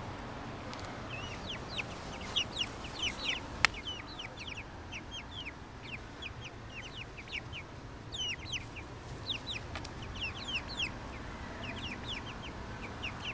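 Young chickens peeping as they forage: a steady run of short, high-pitched calls, each falling in pitch, with one sharp click about three and a half seconds in.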